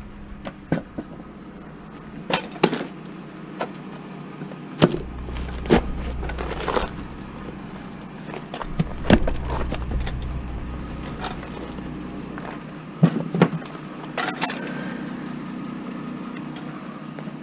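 A vehicle driving, heard from inside: a low road rumble that rises and falls, with irregular clinks and knocks of loose things rattling.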